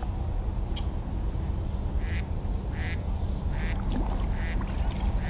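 A series of short, repeated animal calls, about one a second starting some two seconds in, over a steady low rumble. A thin, steady high whine joins about three and a half seconds in.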